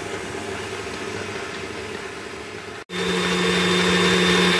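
KitchenAid stand mixer running steadily, its wire whisk beating coconut oil and Greek yogurt in the steel bowl. After a brief break about three seconds in, it runs on noticeably louder.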